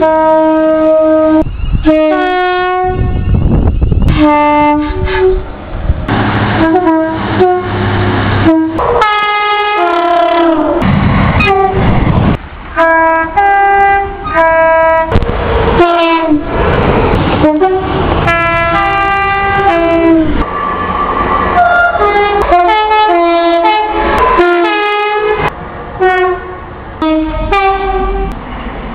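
Railway train horns sounding in quick succession from one clip to the next, many of them two-tone horns stepping between a high and a low note, at many different pitches. Between the blasts comes the rushing noise of trains passing.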